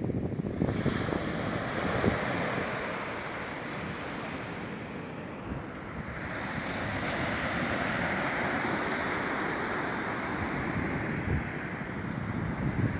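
Sea waves washing onto the beach, a steady rush that swells and eases, with wind buffeting the microphone in low rumbles near the start and end.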